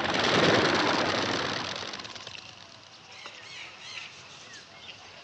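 Birds in a walk-through aviary: a loud rush of flapping wings that fades over about two seconds, followed by faint scattered chirps.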